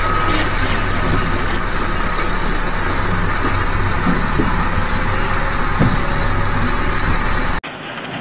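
Heavy diesel earthmoving machinery running steadily, a constant engine rumble under a noisy hiss. It cuts off abruptly near the end.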